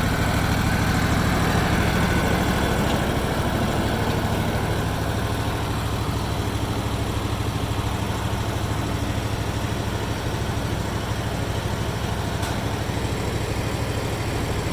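Engine idling steadily with a low, even hum. A higher whine fades away over the first few seconds.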